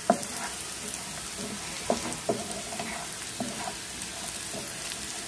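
Diced elephant foot yam sizzling as it fries in oil in a pan, with a wooden spatula stirring it and knocking and scraping against the pan several times.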